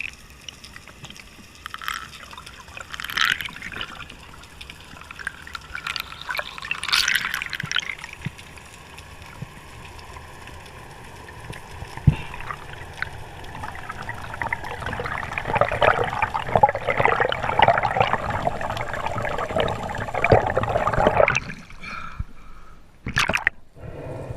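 Water sounds with trickling and gurgling: scattered sharp clicks, then a dense crackling spell through the second half that stops abruptly near the end.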